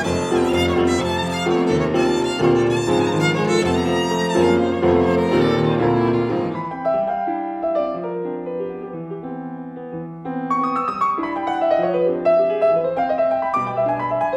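Violin and Yamaha grand piano playing an improvised duet mixing jazz and classical styles. The playing is dense at first, thins out and quietens about seven seconds in, then builds again a few seconds later.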